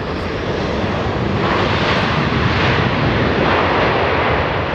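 Loud engine noise of a passing aircraft, a steady rushing sound that swells about a second and a half in.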